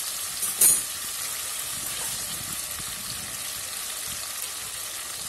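Spice-coated fish and fried green banana pieces sizzling steadily in oil in a wok, with a short tap about half a second in.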